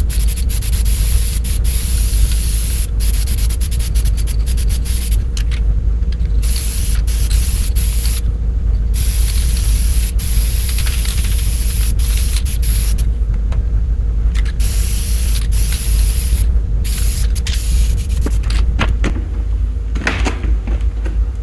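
Aerosol can of spray-on head gasket sealant hissing in repeated bursts with short pauses, coating a new head gasket. A steady low rumble runs underneath.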